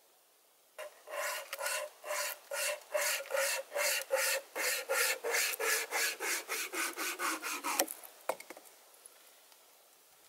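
Small pocket wire saw cutting wood in quick back-and-forth rasping strokes, about three or four a second, for some seven seconds. Two sharp cracks follow just after the sawing stops.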